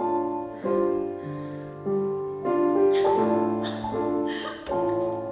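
Instrumental music led by piano, a new sustained chord struck about every second.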